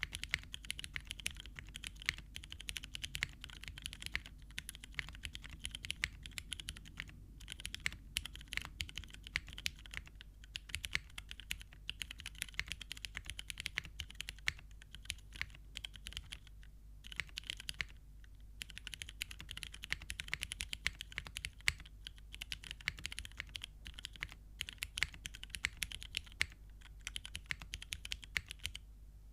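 Typing on a Geonworks F2-60 custom mechanical keyboard with an aluminum plate, lubed Cherry MX Hyperglide Brown tactile switches and GMK keycaps. The keystrokes come fast and steady, with a few brief pauses.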